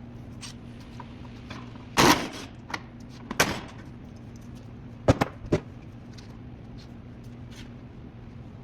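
A few separate knocks and clanks of hand tools on the bumper fasteners, the loudest about two seconds in, over a steady low hum.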